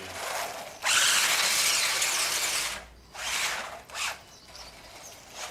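WLToys 144001 1/14-scale electric RC car spinning on the spot, its tyres skidding across the ground. A short burst comes first, then a long loud skid of about two seconds, then two shorter ones.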